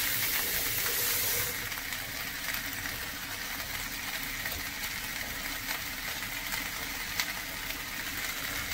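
Boiled beef tripe sizzling as it fries in an oiled pan, a steady hiss with light crackles, louder and brighter for the first second and a half.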